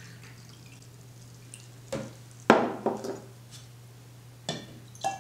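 A pour of water from a glass carafe into a glass measuring cylinder trails off to a faint drip. Then come several sharp glass clinks and knocks as the carafe and cylinder are handled and set down; the loudest is about two and a half seconds in.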